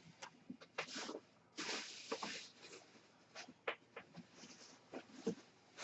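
Faint rustling, crinkling and light knocks from a sealed box of hockey cards and its wrapping being handled and opened. There is a longer stretch of rustling about two seconds in.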